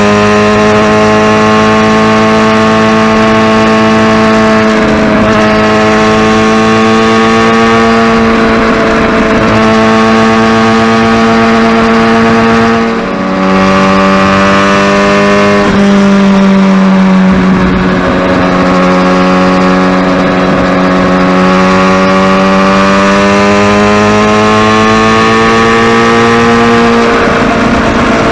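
Kawasaki Ninja ZX-6R's inline-four engine running under way at fairly steady revs, the pitch drifting gently up and down. About 13 seconds in the sound dips briefly and comes back at a different pitch.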